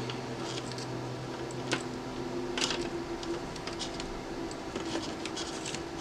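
Scattered small clicks and scrapes of hands handling phone parts and wire, over a steady low electrical hum.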